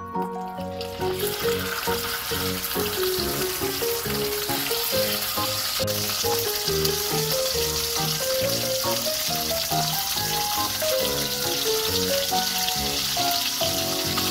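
Mackerel fillets sizzling steadily in hot oil in a nonstick frying pan; the sizzle starts about a second in, as the fish goes into the pan. Background music with a melody and a steady beat plays throughout.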